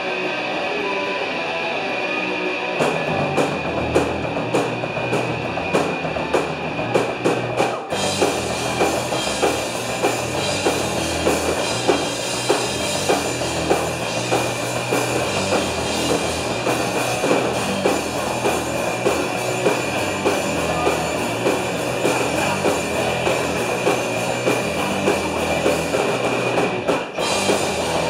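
Punk band playing live with distorted electric guitars and a drum kit. A guitar plays alone at first, drums come in about three seconds in, and the full band with cymbals kicks in about eight seconds in. There is a brief break near the end before the band comes back in.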